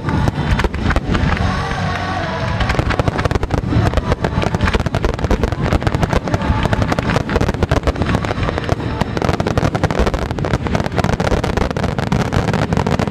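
Finale barrage of aerial firework shells, many bursting at once in a rapid, unbroken string of overlapping bangs.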